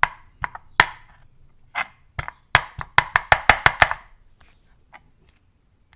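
Metal lock cylinder from an Abus Bravus 4000 tapped against a wooden pin tray to shake out its pins and sidebar sliders: a few separate sharp taps, then a quick run of about eight taps, some six a second, ending about four seconds in.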